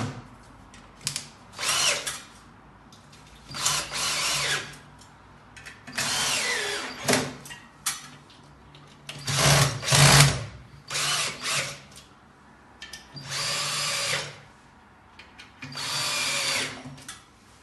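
Cordless drill/driver driving screws through a split air conditioner's metal mounting plate into the wall, in about seven short runs of a second or so each with pauses between.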